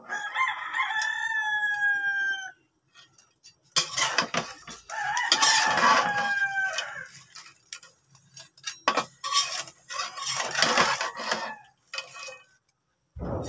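A rooster crowing twice, each crow a long call of about two seconds with a slight fall in pitch at the end. In between and afterwards comes the clatter of a metal spatula against an aluminium wok as crabs and squash are stirred.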